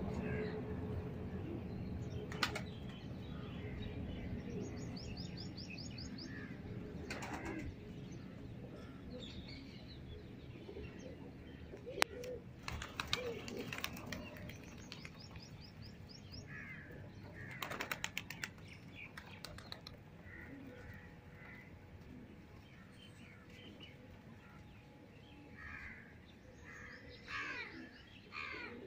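Domestic flying pigeons' wings flapping and clapping in several short bursts as birds take off and flutter up from the perch, with a few faint chirps between them.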